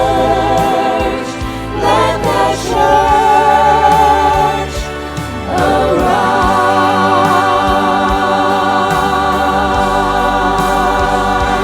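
A choir singing a Christian praise song with instrumental backing, holding out long sustained notes with vibrato on the word "church"; the harmony shifts to a new held chord about five and a half seconds in.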